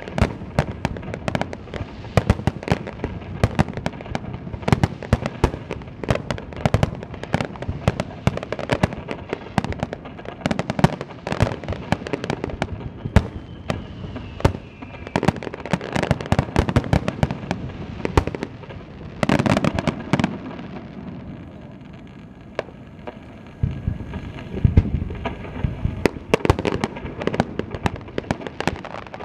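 Star mine fireworks barrage: a dense, irregular run of overlapping launch thumps and shell bursts with crackle. A faint falling whistle comes near the middle, and the bangs ease off briefly about three-quarters through before picking up again.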